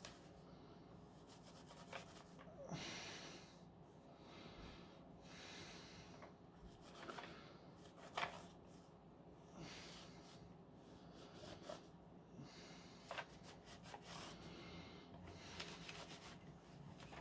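Faint rubbing and wiping strokes with a few light clicks and taps, from a Dyson V10 cleaner head being handled and cleaned.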